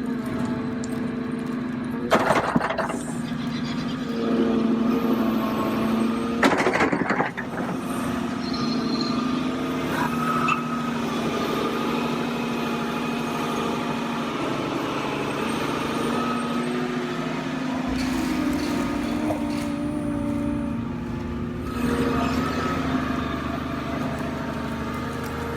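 A heavy engine runs steadily at one speed, with two short, loud noisy bursts about two seconds and about seven seconds in.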